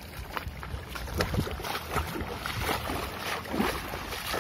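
Footsteps wading through shallow water over a rocky reef flat: irregular splashes and sloshing, a few a second, with wind rumbling on the microphone.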